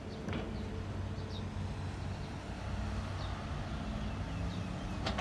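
Street ambience: a steady low engine hum from traffic and machinery, with short high bird chirps scattered throughout. Two sharp clicks come, one just after the start and one near the end.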